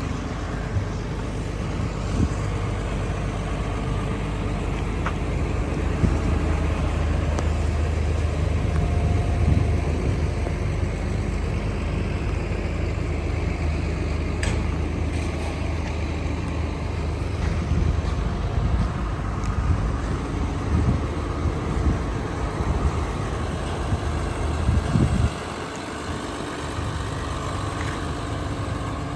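Komatsu PC360LC-11 excavator's diesel engine running steadily with a deep hum and a few light knocks. About 25 seconds in, the engine note drops and gets quieter.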